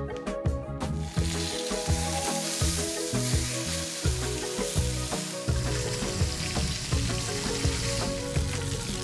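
Food frying in hot oil in a pan, a steady sizzle that starts about a second in, over background music with a steady beat.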